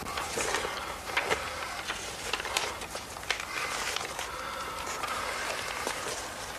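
Quiet room tone with paper rustling as an envelope is handled, broken by a few short sharp clicks in the first half.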